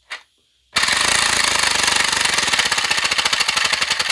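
3D-printed single-cylinder compressed-air engine with a lightened flywheel running fast on 20 psi. After a short click it starts under a second in and gives a loud, very rapid, even chatter of air exhaust puffs.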